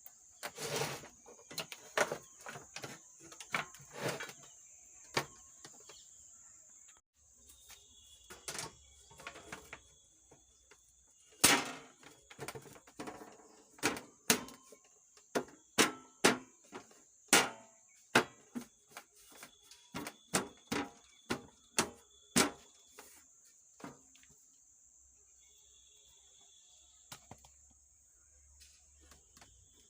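Irregular clicks, taps and knocks of hand tools and metal parts as a circuit board is fitted back into a power amplifier's chassis, with one louder knock about eleven seconds in, over a faint steady high hiss.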